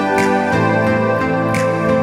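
Instrumental background music: sustained chords changing every half second or so, with two light shimmering accents.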